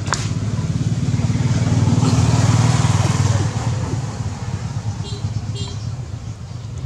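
An engine running with a fast low pulse, swelling to its loudest two to three seconds in and then fading.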